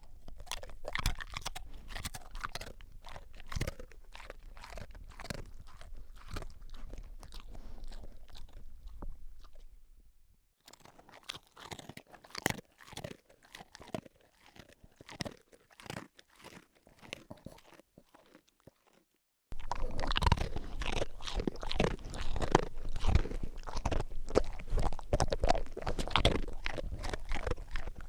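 A dog crunching and chewing its food with irregular, rapid crunches. The sound changes abruptly about a third of the way in, to quieter chewing, and again about two-thirds of the way in, to louder, closer crunching.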